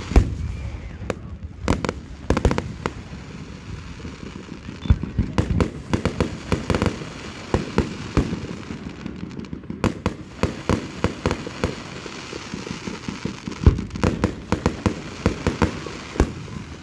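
Fireworks display: aerial shells bursting in a dense, irregular barrage of sharp bangs, with a few louder booms at the start, about two seconds in, and near the end.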